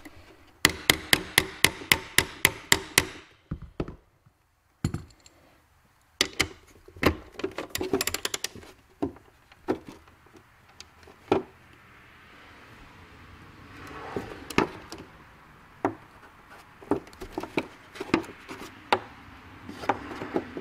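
A small ball-peen hammer taps a screwdriver down onto a seized screw in quick succession, about five sharp taps a second, for a couple of seconds. After a pause come irregular clicks of a ratchet handle and bit working the stuck screw, whose head keeps wanting to slip.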